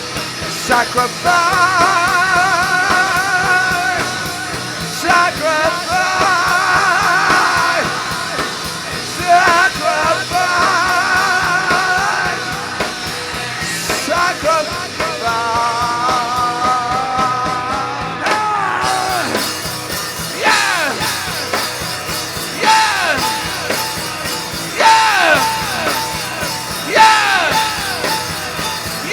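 Live rock band playing with yelled vocals. Wavering high held tones fill the first half, and about twenty seconds in the music turns to repeated falling swoops.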